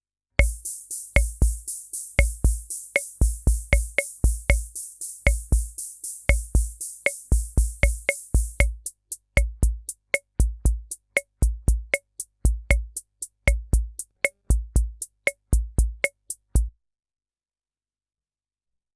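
Korg SR-120 Mini Pops analogue rhythm machine playing one of its preset rhythm patterns: bass-drum thumps, sharp pitched block-like clicks and a fast, steady cymbal ticking. The cymbal drops out about halfway through while the drums and clicks carry on, and the pattern stops a couple of seconds before the end.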